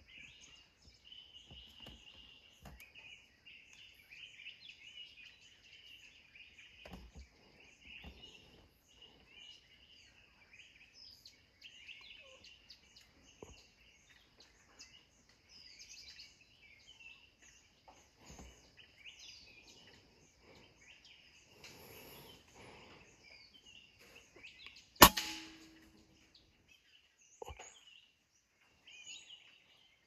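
A steady chorus of insects with bird chirps, then near the end a single sharp shot from a PCP air rifle, the loudest sound, followed a couple of seconds later by a fainter knock.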